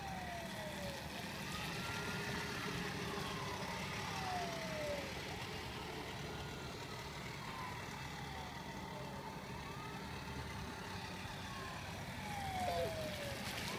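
Electronic siren of a battery-powered ride-on toy fire truck wailing: a tone that rises, then falls slowly in pitch, repeating about every three seconds over a steady hiss.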